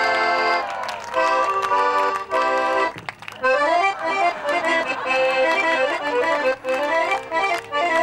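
Instrumental band music: held chords, a short break about three seconds in, then quick runs of notes over a steady accompaniment.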